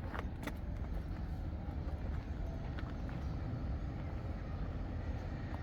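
Footsteps on a hard path, a few sharp steps in the first second and one near the middle, over a steady low rumble.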